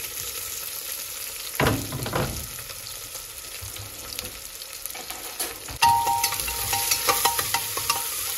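Sliced onion and potato sizzling in oil and ghee in a pressure cooker, with a spoon scraping against the pot as they are stirred: one scrape about a second and a half in, then frequent clicks and scrapes in the second half.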